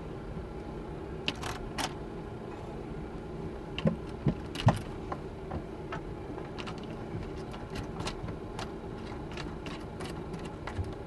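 Scattered light clicks and taps of hand work on a Victron Lynx distributor and its 60 A fuse hardware, the strongest about four seconds in, over a steady low hum.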